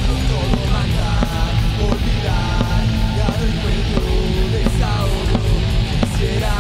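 Loud, heavy punk rock recording: a full band playing a dense, driving passage with a strong low end and bending melodic notes.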